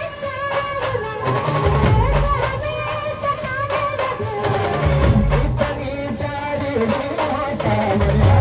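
Brass band playing a film-style song: a held, wavering melody line over heavy bass-drum beats about every three seconds.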